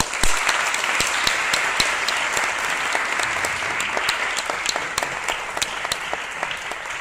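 Audience applauding: many hands clapping steadily, easing slightly near the end.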